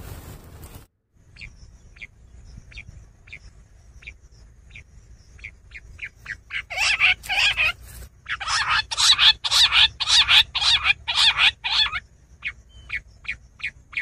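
Quail calling: a run of short, soft notes that quicken, then a stretch of loud, harsh notes about three a second for several seconds, thinning back to soft notes near the end.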